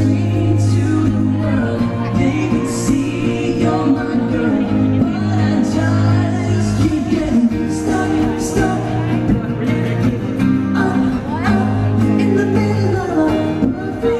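Live pop band music: male voices singing over guitar with a steady bass line.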